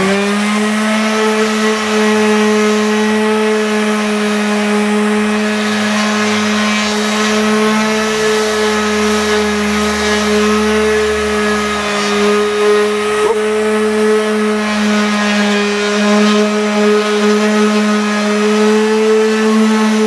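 Electric random-orbit palm sander running steadily with 120-grit paper against Azek PVC trim board: an even, steady motor whine.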